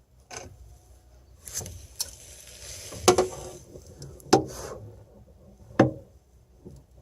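Handling noise: a few light clicks, a stretch of rustling and scraping from about one and a half to three and a half seconds in, and three sharp knocks about a second and a half apart, the loudest sounds here.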